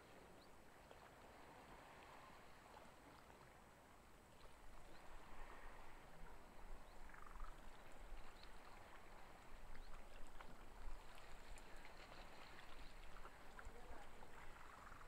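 Faint outdoor ambience by open water: a low, gusty wind rumble on the microphone that gets louder about four seconds in, over a soft water-like hiss with scattered faint ticks.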